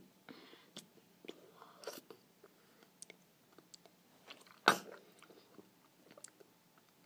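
Mouth sounds of someone tasting food from a metal spoon: scattered smacks, clicks and chewing. One short, loud, sharp sound a little past halfway stands out above the rest.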